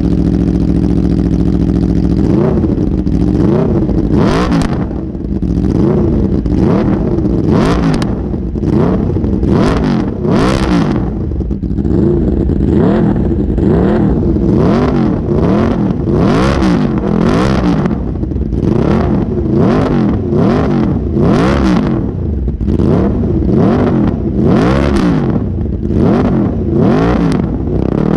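Aprilia RSV4 V4 engine through its aftermarket carbon slip-on exhaust, revved repeatedly while standing in neutral. It idles briefly, then is blipped about once a second, each rev rising and falling quickly in pitch.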